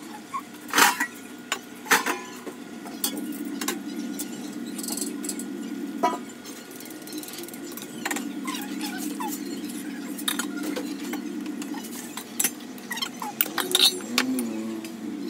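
A metal spoon or ladle clinking and knocking against a cooking pot of gravy as it cooks on the stove. The sharp clinks come irregularly, with a cluster near the end, over a steady low sound.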